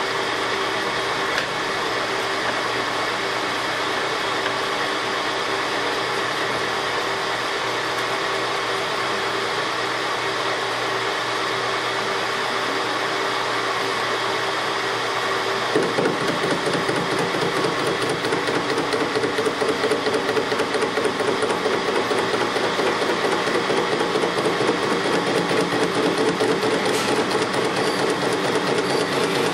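Metal lathe running with a BMW motorcycle connecting rod spinning off-centre in its chuck. About halfway through, a fast, even pulsing sets in as the cutting tool takes a light cut to lighten the rod, down toward the rod bolt.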